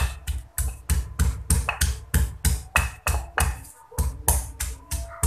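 Stone pestle pounding fresh chilies, shallots and garlic in a heavy stone mortar. Steady rhythmic strokes at about three a second, each a dull thud with a sharp knock of stone on stone.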